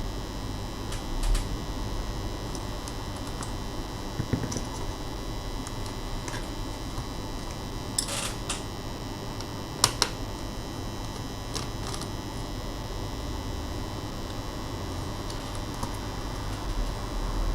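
Light scattered clicks and taps of small laptop parts and tools being handled, over a steady background hum. A short scraping rustle comes about eight seconds in, and a sharp click about two seconds later.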